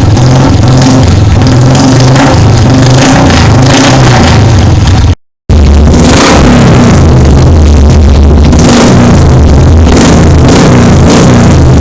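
Loud music with a heavy, stepping bass line, mixed with a Royal Enfield motorcycle's aftermarket exhaust revving. The sound cuts out completely for a moment about five seconds in.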